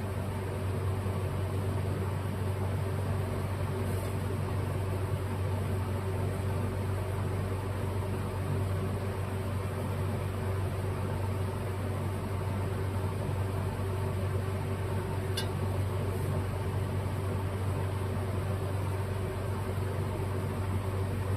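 Steady low mechanical hum of a running machine, such as a fan, with a faint tick about three quarters of the way through.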